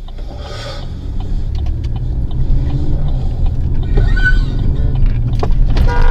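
A car driving: low engine and road rumble building steadily louder. A sustained tone with several pitches starts just at the end.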